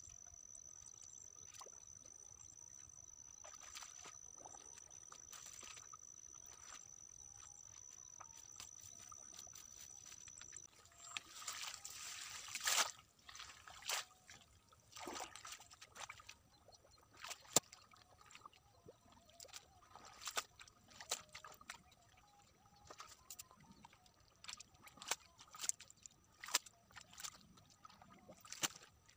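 Hands splashing and sloshing in shallow muddy water: irregular splashes and slaps starting about ten seconds in, busiest around a third of the way through, then scattered through the rest. Before that only a faint steady hum with a thin high tone.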